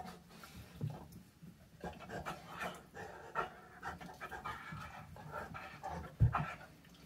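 A dog panting in quick, uneven breaths during play, with a dull thump about six seconds in.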